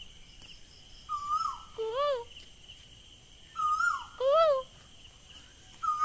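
A bird and a person imitating it trade calls three times. Each exchange is a softer, higher short note followed about half a second later by a louder, lower call that rises and falls in pitch, repeating about every two and a half seconds.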